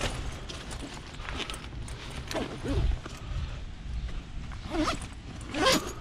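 Salvaged scrap being handled: irregular knocks and clatter, with three short squeaky creaks.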